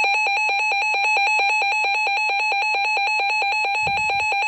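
Weather alert radio's electronic warning alarm sounding for a severe thunderstorm warning: a loud, rapidly pulsing beep, about eight pulses a second, on a high two-pitch tone.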